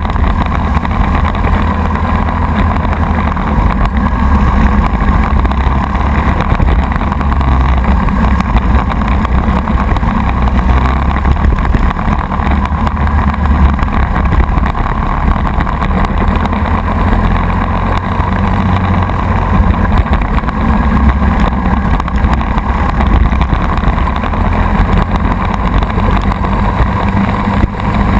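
Racing kart's Briggs & Stratton Animal four-stroke engine running loud and steady under racing load, heard from a camera mounted on the kart.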